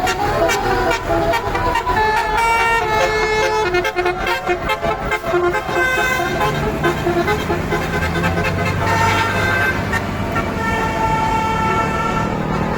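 Telolet musical bus horns playing quick runs of stepped notes, with a tour bus engine running under them, its low hum coming in about halfway and growing stronger.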